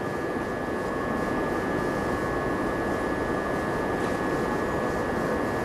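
Steady room noise of a large hall: a continuous hum and hiss with faint, steady high whining tones, and no speech.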